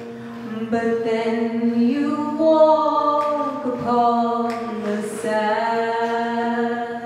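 A woman singing a slow melody that slides between notes, over a steady held note from the accompaniment.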